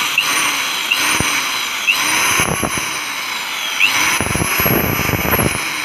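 Forte 110 mm, 1230-watt electric cutter running with no blade fitted: a steady high-pitched motor whine at full no-load speed.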